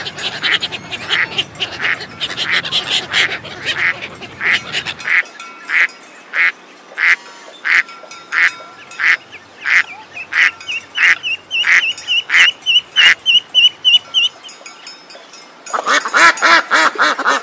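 Mallard ducks quacking in a steady series of short calls, about two a second. Partway through comes a fast run of small high chirps, and near the end a louder burst of quacking.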